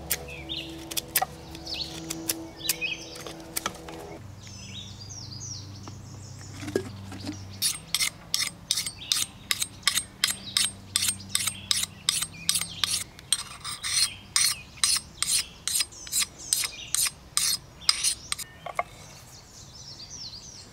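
Knife carving a wooden spoon: a run of quick, even scraping cuts into wood, about two or three strokes a second, lasting some ten seconds. Birds chirp in the first few seconds.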